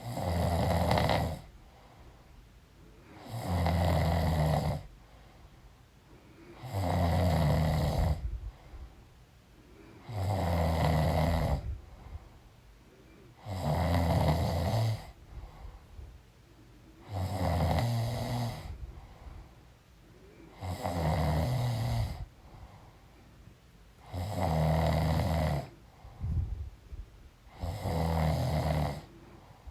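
A woman snoring in her sleep: nine loud, low snores at a steady pace, about one every three and a half seconds, with quiet between them.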